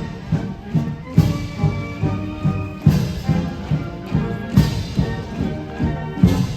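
Military band playing a march: brass holding notes over a steady bass drum beat, about two to three strokes a second.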